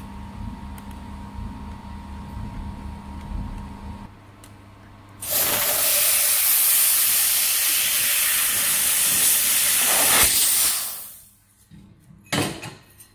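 Handheld fiber laser gun cutting a thin metal plate, its nozzle blowing assist gas in a loud, steady hiss for about six seconds that stops sharply. Before it there is a low machine hum, and near the end a short knock as the cut plate is handled.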